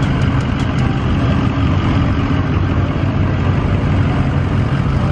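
Engines of lifted pickup trucks rumbling steadily as they idle and crawl along in slow traffic, with a light rapid ticking that stops about a second in.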